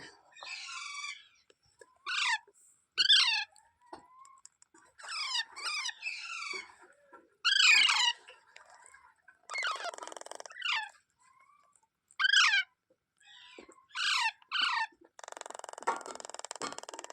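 Indian ringneck parakeet calling: short shrill squawks, each falling quickly in pitch, singly and in quick pairs, with two longer harsh rasping calls, one about ten seconds in and one from about fifteen seconds on.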